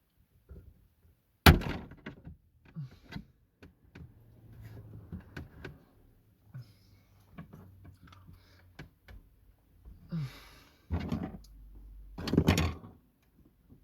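A sharp, loud knock about a second and a half in, then scattered clicks, taps and rustling, and two heavier clunks near the end: hands and tools working at a car's plastic dashboard trim to free the radio.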